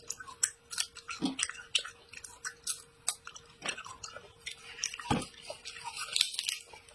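A person chewing crisp food close to the microphone: many small, irregular crunches and wet mouth clicks, over a faint steady hum.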